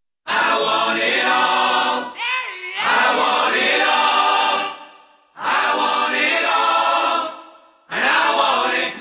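A choir sings a series of held chords, each lasting about two seconds and fading out, with short breaks between them. A voice swoops up and down in pitch between the first and second chords.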